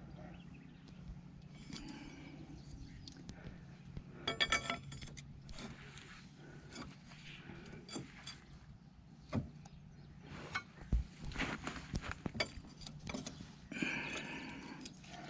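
Metal tools and parts clinking and tapping, with a ringing metallic jangle about four seconds in and scattered sharp clicks later, as a tight nut is worked onto the threads of a hydraulic cylinder.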